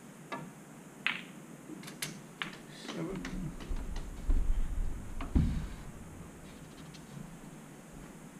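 Snooker balls clicking: the cue tip striking the cue ball and the cue ball hitting a red, sharp clicks in the first couple of seconds with the loudest about a second in. Low thumps and rumbling follow around the middle, close to the microphone.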